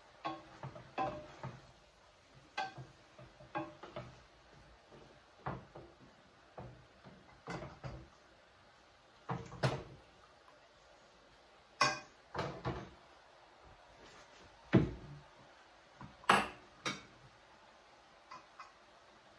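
A slotted spoon knocking and scraping against stainless steel pans as lentils are stirred and scooped from a pot into a sauté pan: a string of irregular clinks and clanks, with a dull thump and a sharp metal clank a little after the middle.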